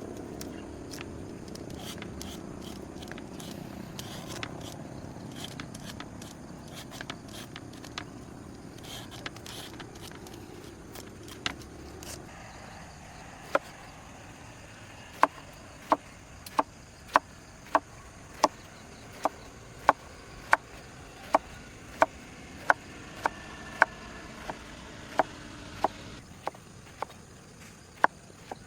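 Scraping and crackling for the first dozen seconds, then a steady run of sharp knocks, about three every two seconds.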